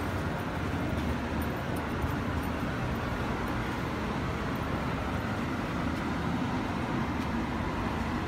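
Steady city street noise: traffic running along a busy road, an even wash of sound with no single event standing out.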